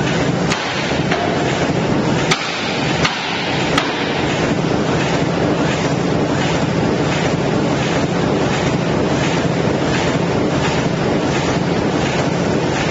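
Production machinery making sterilization pouch reel rolls, running steadily with a faint regular beat about twice a second. A few sharp clicks come in the first four seconds.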